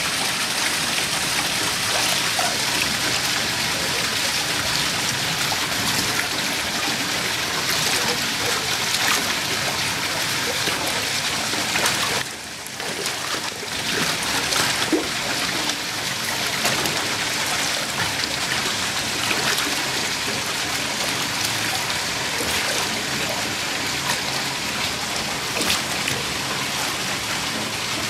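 Steady rushing water with splashing as Eurasian otters swim and tumble in a pool; the noise dips briefly about twelve seconds in.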